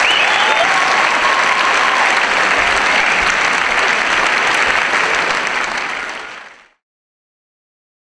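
Audience applauding in a concert hall, fading out about six and a half seconds in to dead silence.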